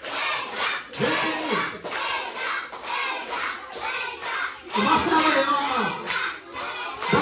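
A group clapping in a steady rhythm, about three claps a second, with voices over the clapping.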